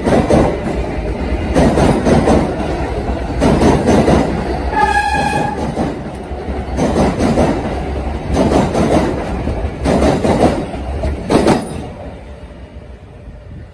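Kawasaki R143 subway train passing close by, its wheels clattering over the rail joints in surges about every second and a half. A brief high tone sounds about five seconds in, and the train fades as its last car goes by near the end.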